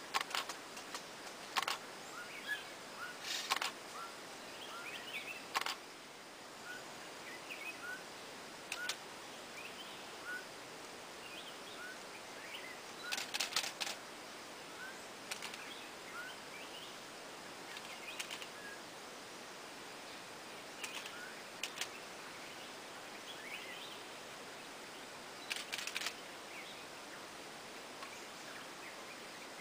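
Camera shutters clicking, sometimes a single frame and sometimes a quick burst of several frames, the longest bursts a little before the middle and near the end. Faint short chirps repeat throughout under a steady background hiss.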